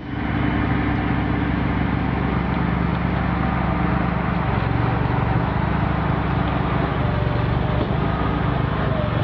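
Diesel engine of a heavy-haul truck running steadily under load as the oversize rig drives past, a low, even drone whose note shifts slightly about halfway through.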